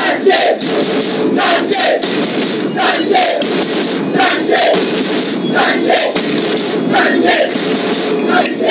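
Many people talking at once: a steady crowd chatter of overlapping voices, with frequent short, sharp clicks through it.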